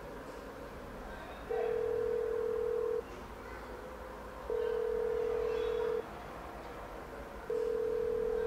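Telephone ringback tone: a steady single tone lasting about a second and a half, repeating three times with equal gaps, the sign that the called phone is ringing and not yet answered.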